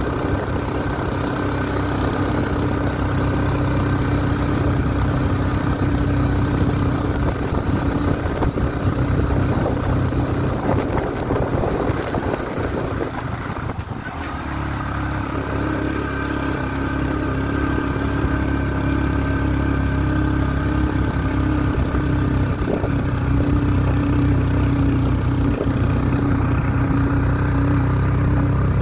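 Motorcycle engine running steadily while riding along, its note dipping briefly about halfway through and then steadying again.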